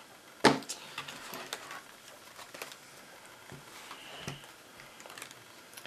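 Handling noises of a laptop on a wooden table as it is turned over and set down: a sharp knock about half a second in, then scattered soft knocks and rubs.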